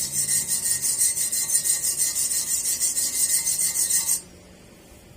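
Stick welding arc crackling steadily, a dense high hiss, cutting off suddenly about four seconds in as the arc is broken.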